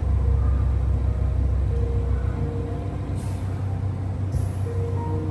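Veterinary oxygen incubator's machinery running with a steady low hum, heard up close, with two brief faint hisses about three and four seconds in.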